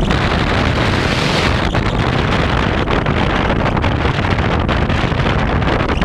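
Steady, loud wind rush and buffeting from airflow over the camera on a Bixler RC airplane in flight, brightening for about a second near the start.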